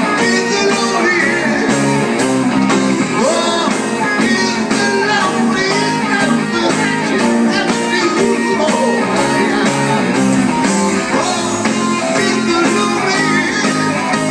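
Live rock band playing through a stage PA, electric guitar to the fore, over a steady drum beat.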